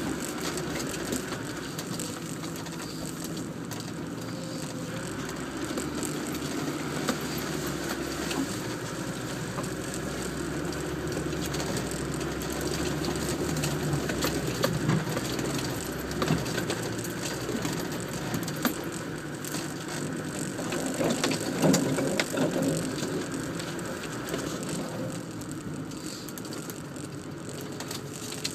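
Land Rover Defender driving slowly over rough off-road ground, heard from inside the cab: the engine runs at low revs under a constant clatter and rattle of the body and fittings.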